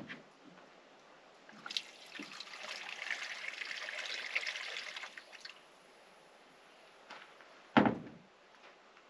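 Water pouring in a steady trickle into a mixing bowl for about three and a half seconds. Near the end comes a single sharp thump.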